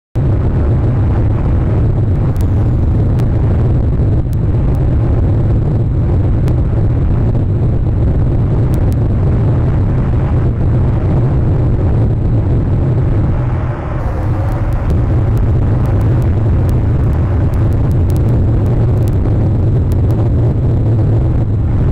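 Steady wind rumbling on an outdoor nest-camera microphone, a deep, loud noise with scattered faint clicks.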